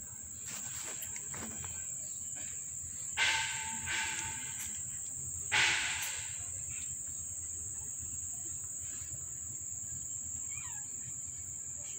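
Steady, high-pitched insect chorus, with two short louder sounds about three and five and a half seconds in.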